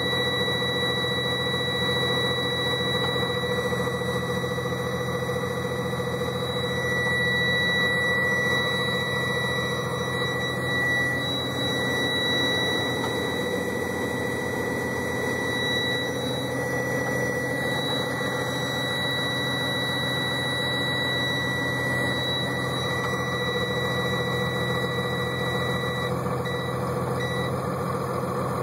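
6.7 L Cummins ISB diesel of a 2011 Freightliner M2 106 idling cold just after start-up, heard from inside the cab, under the steady high tone of the low air pressure warning buzzer. Near the end the buzzer stutters and cuts off as the air tanks build to about 60 psi.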